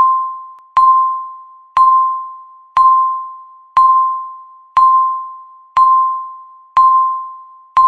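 Countdown timer beeping once a second, each beep a single pitched tone that starts sharply and dies away before the next one.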